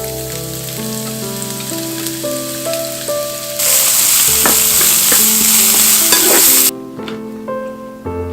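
Japchae ingredients sizzling as they are stir-fried in a hot pan. The sizzle gets much louder a few seconds in and drops away again near the end, with a few knocks of the stirring utensil.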